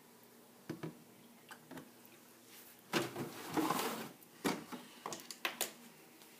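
Kitchen handling sounds while measuring ingredients: a few sharp clicks and knocks of spoons and containers. About three seconds in there is a louder rustle and scrape lasting about a second, then a quick run of light clicks.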